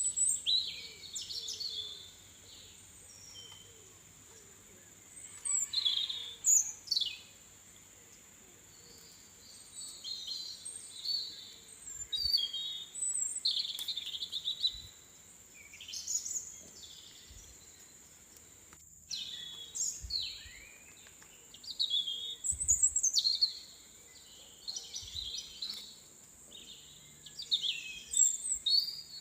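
A songbird singing: short, varied phrases of chirps and quick whistled glides, repeated every few seconds. A steady high-pitched tone runs beneath them.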